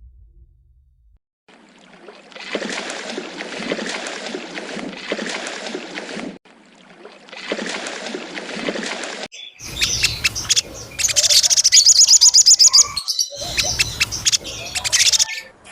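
Birds calling and chirping in several separate stretches, with a fast, high trill in the last part.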